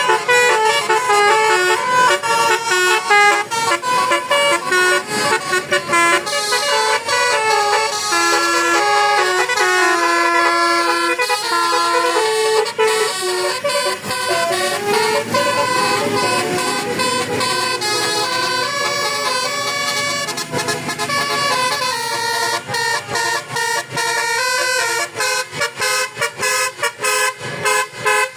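Bus basuri musical horn playing a melody, one pitched note stepping to the next, with short broken-off toots over the last few seconds.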